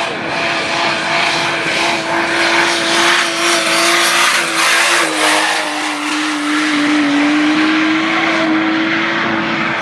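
Holden Commodore engine held at steady high revs in a long burnout, the rear tyres spinning and screeching against the tarmac. The engine note sags a little about five seconds in, then holds steady again.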